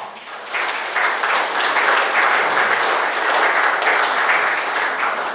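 Audience applause, swelling within the first second and dying away near the end.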